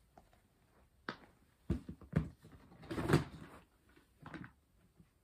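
Clatter and knocks from a clear plastic storage drawer unit being opened and rummaged through: a few separate knocks, with the loudest cluster about three seconds in.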